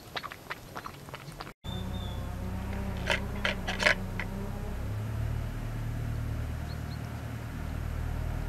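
A cat eating wet food from a tray, with quick wet chewing and lip-smacking clicks about four a second. After a cut a steady low hum sets in, with a few sharp chewing clicks about three to four seconds in.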